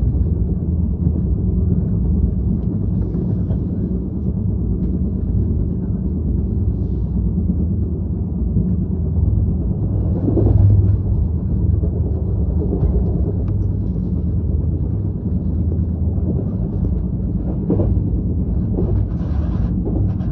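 Steady low engine rumble, swelling briefly about halfway through.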